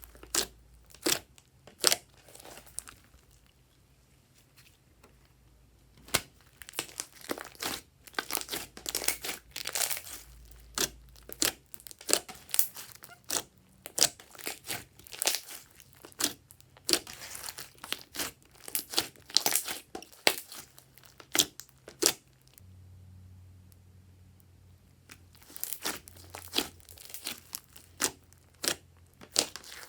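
Glossy slime being squished and stretched by hand, giving irregular sharp clicks and pops in clusters, with two short quiet pauses.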